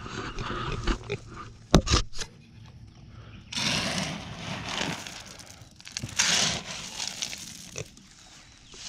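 Metal scoop digging into a plastic tub of dry shelled corn and feed pellets: two spells of rattling, pouring grain, each a second or so long. Before them, near two seconds in, come a couple of sharp knocks.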